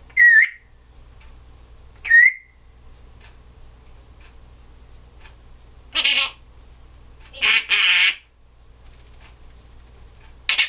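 Timneh African grey parrot calling: two short whistles about two seconds apart, then several harsh, noisy calls in the second half.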